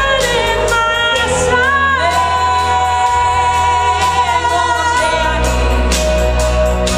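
A song with a sung vocal line holding long notes over bass and a steady beat.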